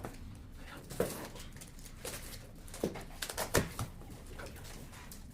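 Monitor box and its packing being opened by hand: scattered rustling and scraping with a few sharp clicks and knocks, the loudest cluster about three and a half seconds in.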